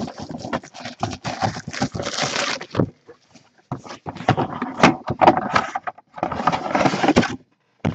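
Crinkly plastic shrink wrap crackling and rustling in quick irregular bursts as a sealed cardboard box is unwrapped and handled, with short pauses.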